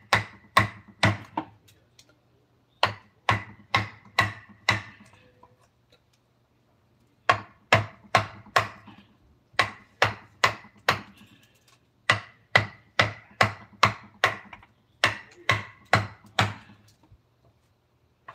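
Hand-struck hammer blows in a woodcarving workshop, coming in bursts of four to six at about three a second with short pauses between bursts, each blow ringing briefly.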